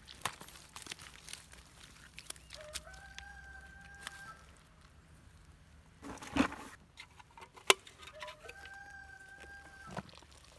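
A rooster crowing twice, each crow about two seconds long, rising in a step to a long held note. Scattered small clicks and knocks, a thump in the middle and one sharp click, the loudest sound, a little after it.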